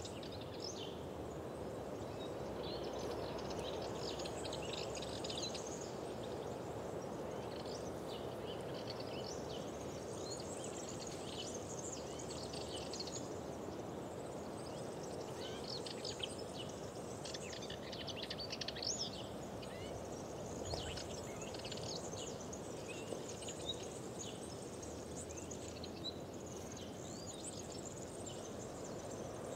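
Several small birds chirping and singing in overlapping phrases over a steady rushing background noise.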